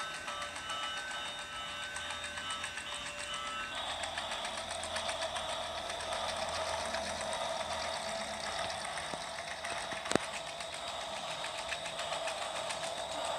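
Battery-powered toy train running: its small electric motor and gears whir with a fast, even ticking. For the first four seconds or so a few steady electronic tones sound with it, then stop, and one sharp click comes about ten seconds in.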